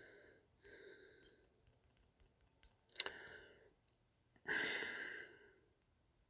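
A man breathing close to the microphone: two faint breaths near the start, a sharp click about three seconds in, then a longer sigh-like exhale about a second and a half later.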